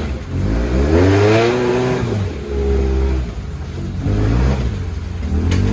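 Off-road 4x4's engine revving, its pitch rising then falling over about two seconds, then revving up again twice more briefly.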